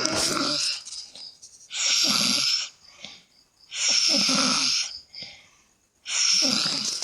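A person snoring in sleep: four rough, hissing snores, each about a second long, coming roughly every two seconds.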